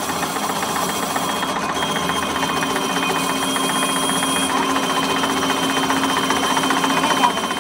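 Metal lathe running with a brazed carbide tool cutting in the bore of a spinning steel workpiece: a steady machine hum with a fast, even rattle and a thin high tone from the cut.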